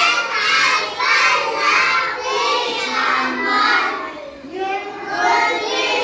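A group of young children singing a song together, with a short break between lines about four and a half seconds in.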